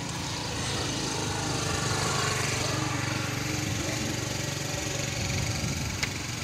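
A small engine running steadily, growing louder over the first two seconds and then holding.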